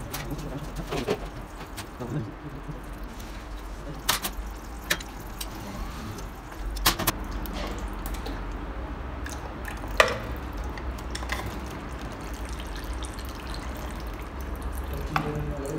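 Metal parts and a spanner clicking and clinking as an old diesel injection pump's governor housing and linkage are taken apart by hand. There are a handful of separate sharp metallic clicks, the loudest about ten seconds in, over a low steady hum.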